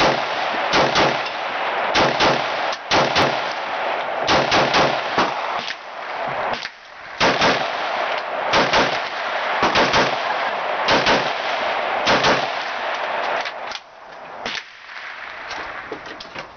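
Two AR-15-style rifles firing quick strings of semi-automatic shots, often overlapping, each followed by echo. The shooting thins to a few scattered shots near the end.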